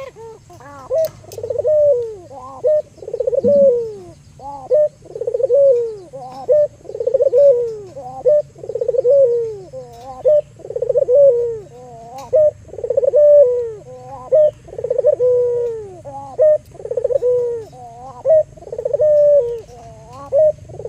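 Albino local puter dove (Barbary dove) cooing over and over: a falling coo roughly once a second, without pause.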